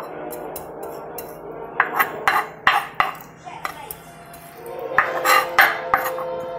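Kitchen clatter: sharp knocks and clinks of utensils and dishes, in a cluster about two seconds in and another about five seconds in.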